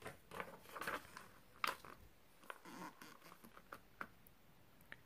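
A paper workbook page being turned by hand: soft rustling for about two seconds, with a sharp slap about one and a half seconds in as the page comes down. A few faint clicks follow.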